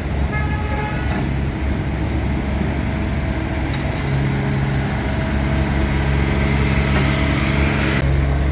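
A motor vehicle or road-works machine engine running with a steady low hum amid street noise.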